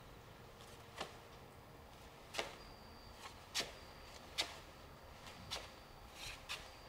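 Scattered sharp taps and clicks, about seven of them at uneven intervals, over a faint hiss.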